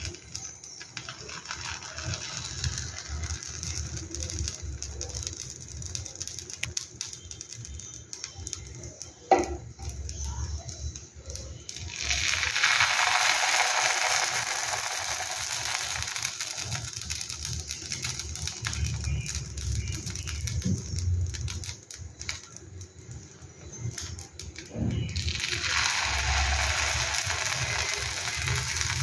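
Dosa batter sizzling as it is ladled onto a hot, oiled cast-iron tawa. There are two bursts of sizzle, one about a third of the way in and one near the end, each starting suddenly and dying away over a few seconds. A single sharp clink of the metal ladle comes shortly before the first.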